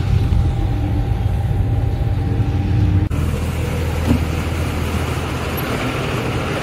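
A motor vehicle running, a steady low engine hum with road noise. About three seconds in the sound cuts off abruptly and carries on with more hiss.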